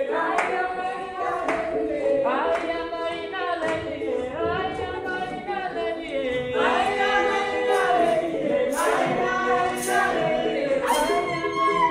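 A group of voices singing together to an arched bow harp, with hand claps about once a second in the second half.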